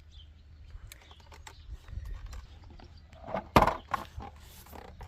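Handling noise: scattered clicks and knocks, with one heavy thump about three and a half seconds in.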